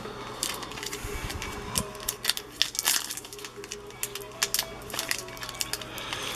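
A foil trading-card pack being torn and worked open by hand: a run of sharp crinkles and rustles of the wrapper.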